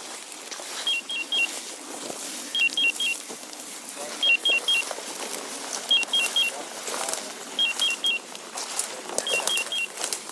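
A hunting dog's beeper collar sounding in groups of three quick two-tone beeps, repeating about every second and a half to two seconds, over the rustle and crunch of walking through dry field cover.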